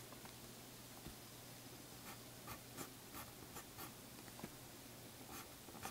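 Pencil scratching on paper in short quick strokes while letters are written, starting about two seconds in, a few strokes a second. A faint steady low hum lies underneath.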